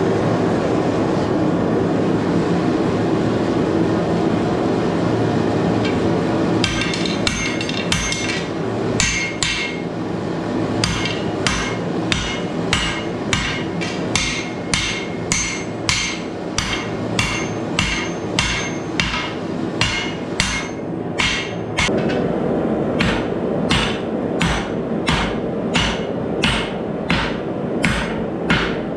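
Hammer blows on steel on an anvil, starting about seven seconds in and going on in an even rhythm of about one and a half strikes a second. A steady rushing noise runs before and beneath the blows.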